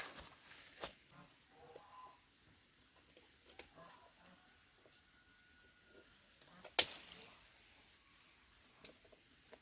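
A steady, high-pitched insect chorus keeps up throughout, one of its tones pulsing rapidly. A sharp knock sounds about seven seconds in, with a fainter click near the end.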